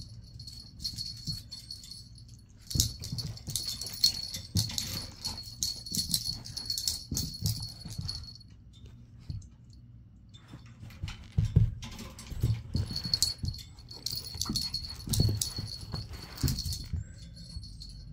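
Small metal tags and clips on a Chihuahua puppy's harness jingling as she runs and plays with a ball, in two stretches with a pause of several seconds in the middle, along with soft low thuds of her paws and the ball on carpet.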